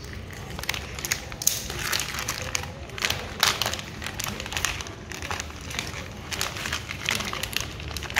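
Plastic wrapping and laminated sticker strips crinkling and rustling in the hands as they are unwrapped, with many irregular crackles and small taps.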